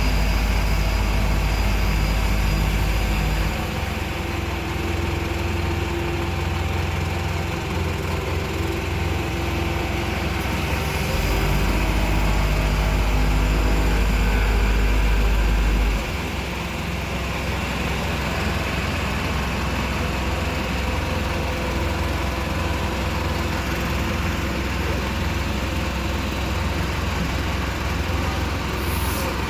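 Heavy diesel road-paving machinery running steadily. A deep low rumble cuts in for the first few seconds and again for about five seconds in the middle, and a short hiss comes near the end.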